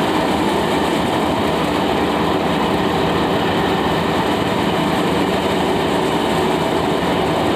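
Paddy thresher driven off a Mahindra tractor's PTO shaft, running steadily under load as rice straw is fed into its drum. The sound is a loud, continuous mechanical rattle and hum.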